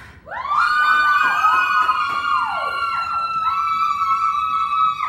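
The dance track's closing notes: several swooping pitch glides, then long held high notes that cut off sharply at the end.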